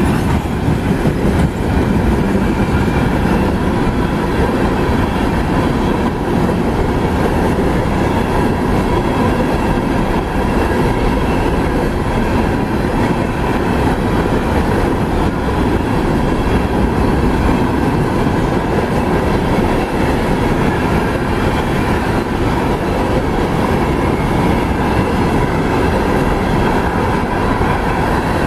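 Freight cars of a CSX mixed freight train rolling past close by: a steady, loud rush of steel wheels on the rails.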